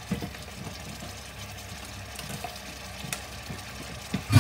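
Curry masala frying and sizzling in a non-stick pan while a wooden spoon stirs and scrapes through it, with a few light knocks and one louder knock near the end. The masala is at the bhuna stage, being fried down with splashes of water until the ghee rises to the top.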